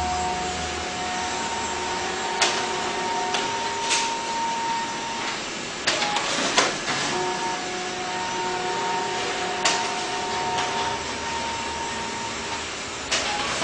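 Xerox DocuColor 250 colour laser copier-printer running a print job: a steady whir of its fans and motors, with a faint two-pitch hum that switches on and off and sharp mechanical clacks every few seconds.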